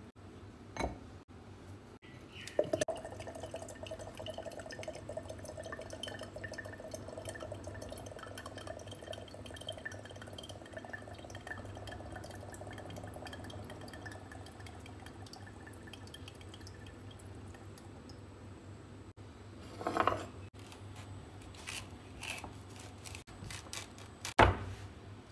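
Coconut water running out of a young green coconut in a thin stream into a glass bowl: a steady trickle with a ringing tone that starts about two and a half seconds in and fades out after about fifteen seconds. Near the end comes a short scraping knock, then a sharp chop of a kitchen knife into the coconut's husk.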